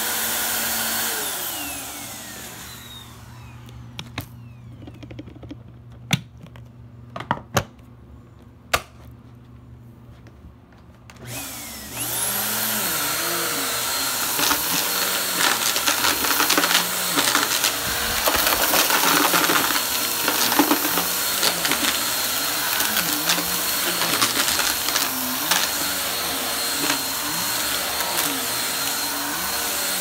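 Upright vacuum cleaner running on carpet, then switched off and winding down about two seconds in. A few sharp clicks sound in the lull. The motor starts up again about eleven seconds in, its pitch rising and falling in a slow swell every couple of seconds as it is pushed back and forth over the carpet.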